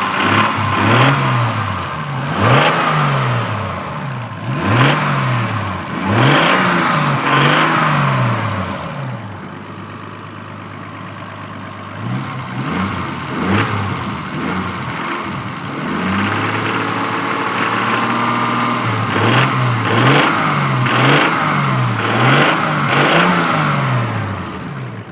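Toyota Supra MK3's straight-six engine revved in quick repeated blips, falling back to idle between clusters, with an odd noise under acceleration that the owner suspects comes from the valves or injectors.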